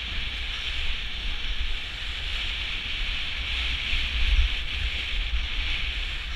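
Wind buffeting the microphone of a camera carried by a moving inline skater, a steady low rumble, over a steady hiss from inline skate wheels rolling on asphalt.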